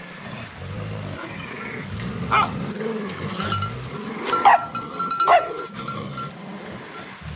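Dogs playing and scuffling: low growls, with three short, sharp yelps that drop in pitch, about two, four and a half and five seconds in.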